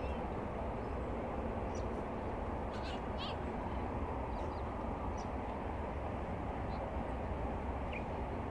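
Steady rumble of distant freeway traffic, with a few short bird calls over it, including a quick run of falling notes about three seconds in.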